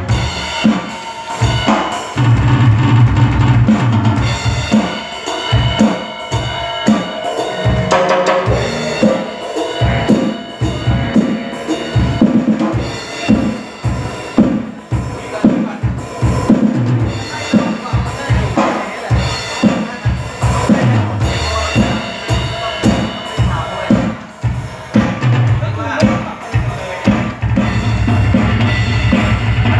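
A DB Percussion drum kit played live: bass drum, snare, toms and cymbals struck in a dense, steady beat.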